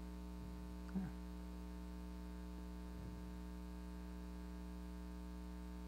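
Steady electrical mains hum, a low buzz with a stack of evenly spaced overtones, with a faint short sound about a second in.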